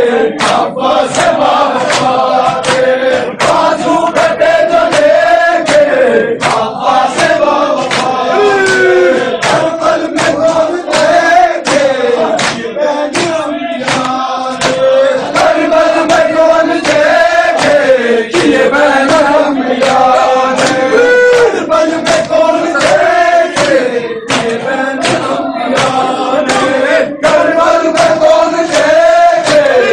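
A group of Shia mourners performing matam: men chanting a noha together over a steady rhythm of hands beating on chests.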